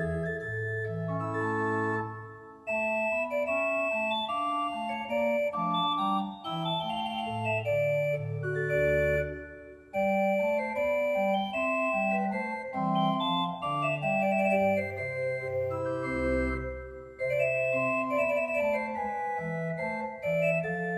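Church choir pipe organ played in several voices, with a moving bass line under slower upper parts. The music goes in phrases, with three short breaks between them.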